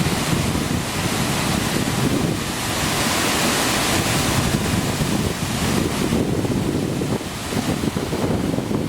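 Hopetoun Falls, a waterfall of about 20–25 metres flowing strongly, giving a steady, dense rush of falling water, with wind buffeting the microphone.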